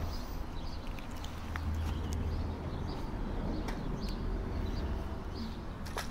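Steady low outdoor rumble with a few faint clicks and small high chirps scattered through it.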